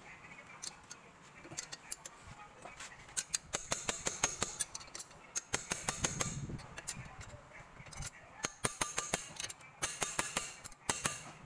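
A metal wrench clicking in quick runs as a brake caliper bolt is turned, with sharp metallic ticks coming several to the second.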